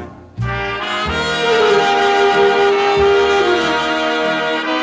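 Instrumental break of a 1950s Schlager recording, with the dance orchestra's brass section playing. The music drops away briefly just after the start, then comes back with a long held brass note that slides down near the end.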